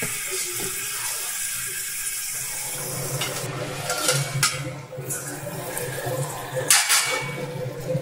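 Cauliflower-and-potato curry in a kadai on the boil, a steady bubbling hiss. In the second half, a few sharp metal clinks.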